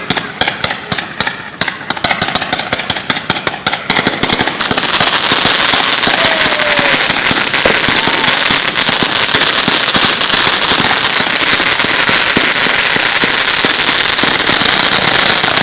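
A string of firecrackers going off: rapid sharp pops at about eight to ten a second, merging about four and a half seconds in into a dense, continuous crackle.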